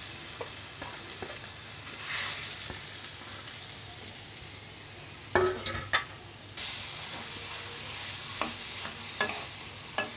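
Onion-spice masala and mashed potato frying in a kadai, a steady sizzle of hot oil with a spatula stirring, scraping and knocking against the pan. The loudest knocks come about five and a half seconds in, with a few more near the end.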